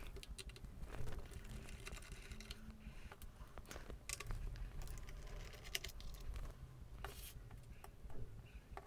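Faint, scattered small clicks and light scrapes of a screwdriver working screws out of a laptop's plastic underside.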